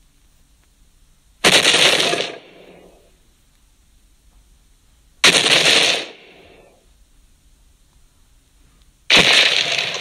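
Giant dinosaur footstep sound effect: three heavy, cracking, crunching impacts, evenly spaced about four seconds apart, each fading out over about a second.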